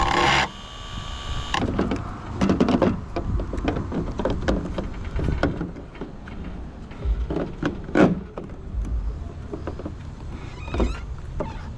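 Hand work on a car taillight's plastic housing and mounting hole: irregular clicks, scrapes and knocks, a louder knock about eight seconds in, after a brief steady whirring tone at the very start.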